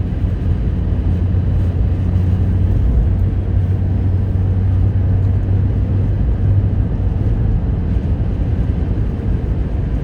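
Steady low drone of a car driving on a highway, heard from inside the cabin: engine hum and tyre and road noise, with no change through the stretch.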